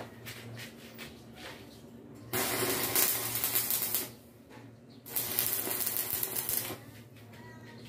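Stick-welding arc crackling and sizzling in two runs of about two seconds each, about two seconds in and again about five seconds in, as the electrode welds the steel body of a charcoal stove. A low steady hum fills the pauses.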